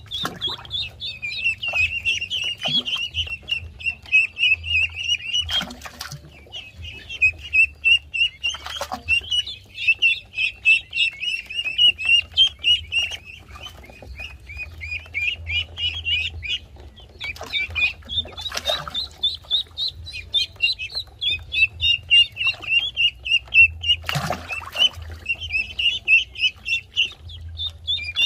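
Several ducklings peeping continuously, a dense chorus of quick high peeps. A few short louder noises cut through it, around 6, 9, 19 and 24 seconds in.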